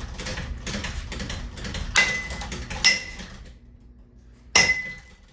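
A wrecked ceiling fan running and rattling, its bent parts clattering fast, until the rattle dies away about three and a half seconds in. There are three loud metallic clangs, each ringing briefly, the last and loudest near the end.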